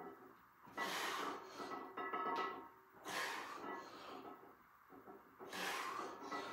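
Forceful breaths of a lifter straining through barbell bent-over rows, one hard breath about every two and a half seconds with each rep, over background music.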